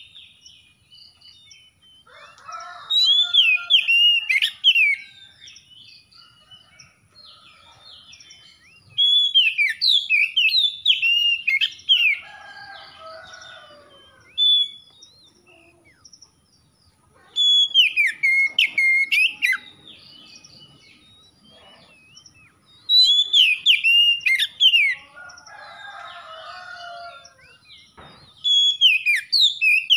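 Oriental magpie-robin (kacer) singing in full voice: five loud bursts of fast, sweeping whistled phrases, about every five or six seconds, with quieter chirps in between.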